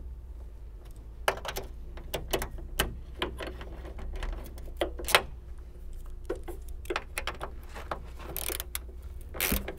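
Ratchet with a size 10 socket clicking in short, irregular runs as a hood shock's mounting bolt is tightened, over a steady low hum.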